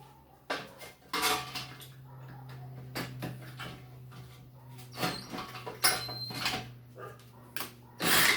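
Metal tools and small parts clinking and clattering as they are handled on a workbench, with two brief high squeaks about five and six seconds in and a louder rattling burst near the end, over a steady low hum.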